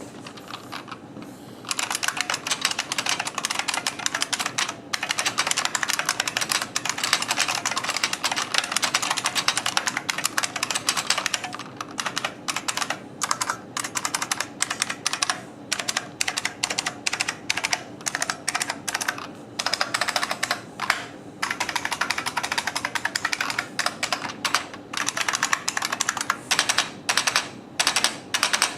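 IBM Model M industrial keyboard's buckling-spring keys being typed on fast and continuously, each stroke a loud click and clack. There are brief pauses now and then, and the keystrokes become sparser near the end.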